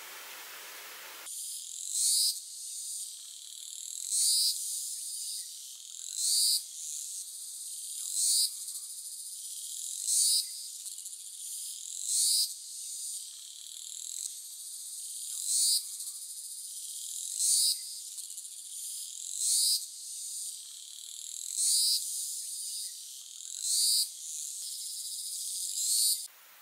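Insects calling: a high-pitched buzzing chorus that swells into a loud pulse about every two seconds. It starts about a second in and stops suddenly at the end.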